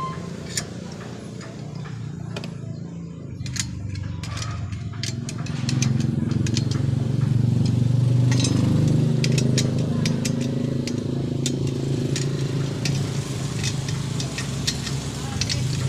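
Small metal parts of a satellite dish mount clicking and clinking as the bracket, clamp and bolts are handled, over a steady low hum that grows louder about five seconds in.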